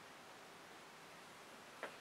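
Near silence: room tone of a small hall, with a single faint click near the end.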